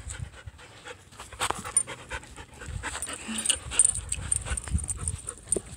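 Dog panting close by during play, with scattered short clicks and rustles.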